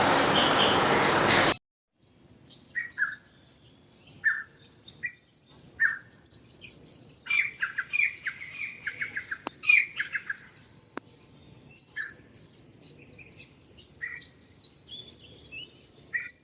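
Small birds chirping and twittering, with a short falling chirp repeated every second or two and a busy flurry of calls in the middle. It opens with a loud, steady noise that cuts off abruptly about a second and a half in.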